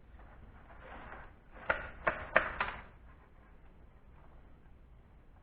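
Small hard parts clinking during hand disassembly of a palm sander: a soft rustle of handling, then four quick, sharp clinks with a brief ring, a little under a second in all, about a second and a half in.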